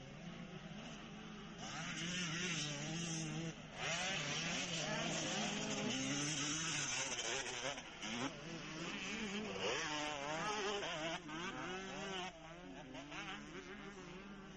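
Motocross bikes racing on a dirt track, their engines buzzing high and revving up and down as the riders accelerate and shift, with more than one bike heard at once.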